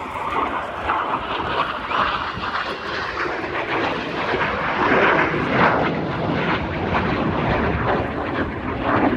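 BAE Hawk T1 jets of the Red Arrows flying past, their jet engine noise swelling to its loudest about five seconds in.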